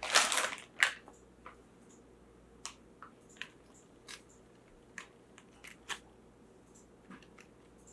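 Crinkling of the blind bag for about the first second, then scattered faint clicks and rustles as a plush toy and its paper hang tag are handled.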